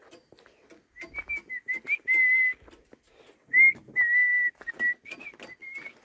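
A person whistling a tune: a run of short notes and a few longer held ones, all close to one pitch, with a quick upward slide in the middle. Faint clicks are heard under it.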